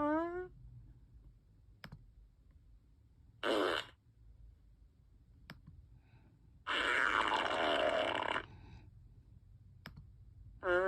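Imitated fart noises: a short sputtering one about three and a half seconds in and a longer one of nearly two seconds around seven seconds in. A rising pitched squeal fades out at the start and another begins near the end, with a few faint clicks between.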